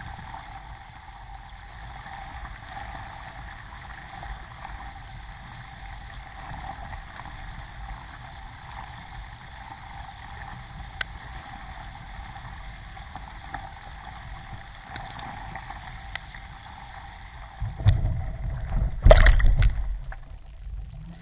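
Water rushing steadily along the hull of a moving Epic Legacy XL K1 racing kayak, heard through a camera mounted on its deck. Near the end, a loud low rumbling buffeting lasts about two and a half seconds.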